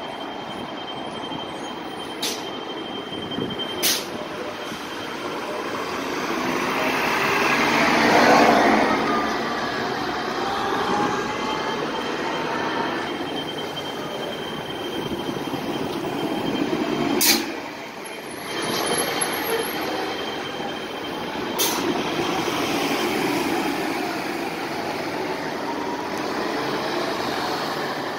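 City buses pulling through a transit station: engines running with a whine that glides up and down in pitch as each bus passes close, loudest about eight seconds in. A few sharp clicks or snaps, the loudest about seventeen seconds in.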